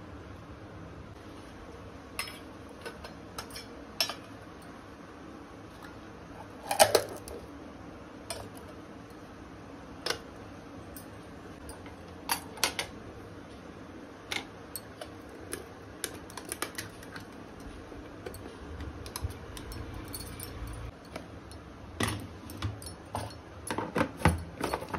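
Stainless steel tiffin containers and a serving spoon clinking and clattering now and then as food is packed and the containers are stacked into a wire carrier. The loudest clatter comes about seven seconds in. A quick run of knocks near the end comes as the containers go into a plastic insulated tiffin carrier and its lid is pressed shut.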